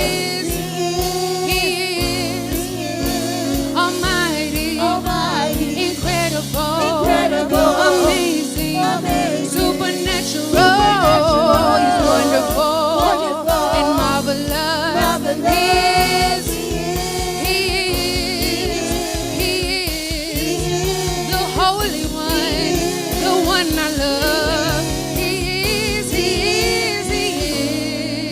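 Gospel praise music: singers with a band, a steady beat under sustained vocal lines.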